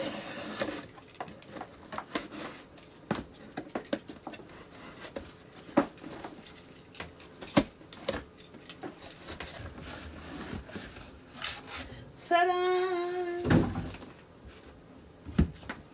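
A bunch of keys used to slit the packing tape on a cardboard shipping box: repeated scraping, clicking and tape tearing, with the keys jangling and the cardboard rustling. About twelve seconds in there is a short hummed voice sound, followed by a heavy thump as something is set down.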